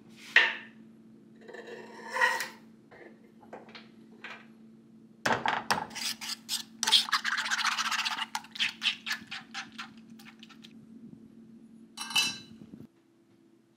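A knife scrapes shredded cheese off a wooden cutting board into a frying pan. Then a fork beats eggs and cheese in a nonstick pan, scraping and clinking against it in fast strokes, about four a second, for several seconds. A short clatter follows near the end, over a low steady hum.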